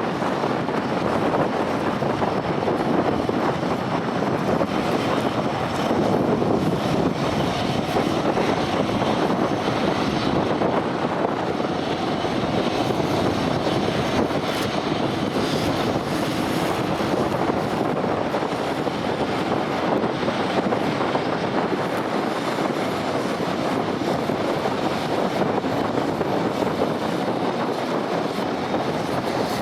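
Airliner engines running, a steady even rushing noise that holds without rising or falling.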